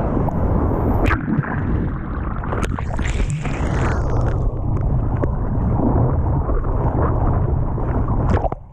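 Strong wind buffeting a GoPro microphone, a loud low rumble, over sea water washing and sloshing around the camera, with a brief hissing rush of water about three seconds in.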